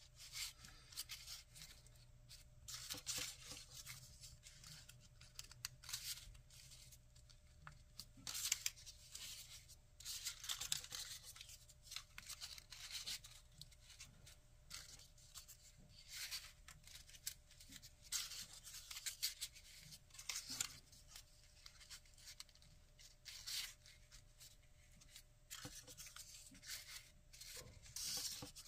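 Folded paper origami units rustling and crinkling as they are handled and slotted together, in irregular short bursts.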